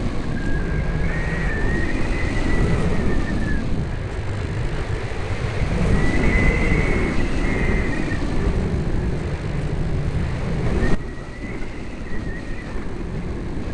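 Electric motor of a Sky Surfer RC plane whining in flight, its pitch wavering up and down with the throttle, over heavy wind rumble on the small onboard camera's microphone. The sound cuts suddenly to a lower level about eleven seconds in.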